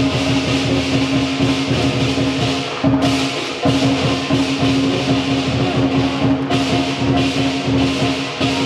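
Lion dance percussion ensemble playing continuously: a big drum beaten rapidly under clashing cymbals and a ringing gong, with the cymbals dropping out briefly about three seconds in.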